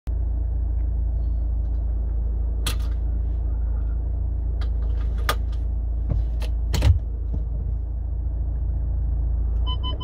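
VW Transporter T6 engine idling, a steady low rumble heard inside the cab, with several sharp clicks and a thump about two-thirds through. Just before the end a dashboard warning chime starts to sound in repeated pulses.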